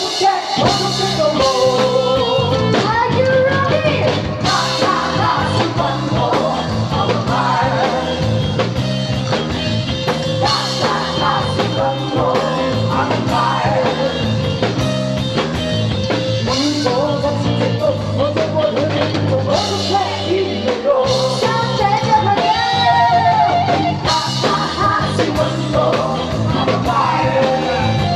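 Rock-and-roll song: a voice singing over guitar and a steady drum beat.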